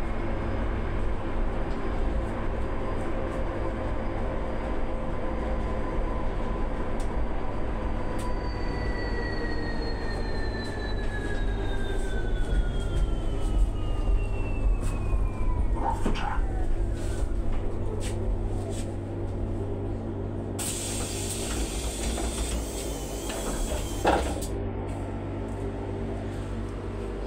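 Interior of a Solaris Urbino 18 electric articulated bus: a steady low hum, with the electric drive's whine falling in pitch over several seconds as the bus slows to a stop. Then compressed air hisses for about four seconds, with a thump as the doors open.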